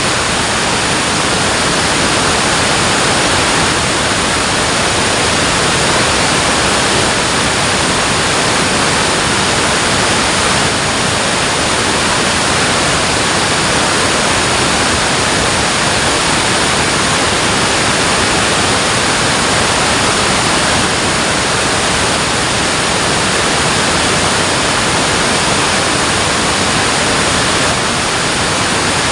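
Water rushing at a dam, a loud steady hiss-like roar that holds even throughout.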